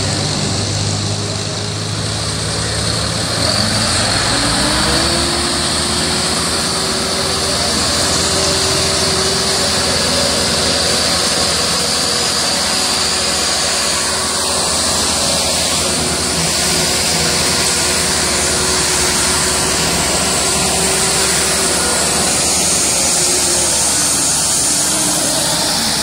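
Massey Ferguson 385 tractor's diesel engine working hard under a heavy towing load. The revs climb about four seconds in, hold steady at full power, and ease off near the end.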